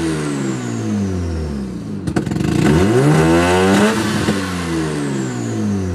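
Mazda RX-7 FC's 13B rotary engine revved with a loud exhaust. The revs fall back over the first two seconds, then a quick rev climbs and falls away again.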